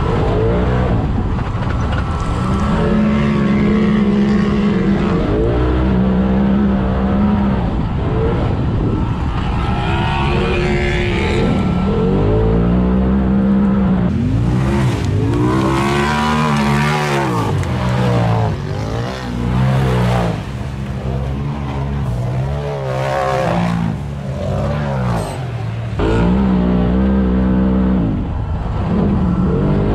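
Polaris RZR side-by-side's engine being driven hard, heard from inside the cab: held at a steady pitch in stretches, and rising and falling in pitch again and again through the middle as the throttle is worked on and off.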